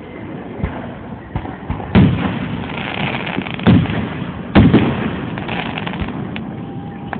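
Aerial firework shells bursting overhead: a series of sharp bangs a second or two apart, with crackling in between.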